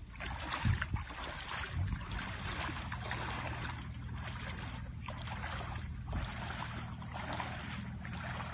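Legs in rubber waders wading through shallow river water: a splashing swish with each stride, about once a second, over a steady low rumble.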